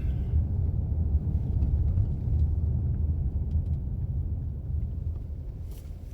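Car cabin noise while driving: a steady low rumble of road and engine that fades toward the end.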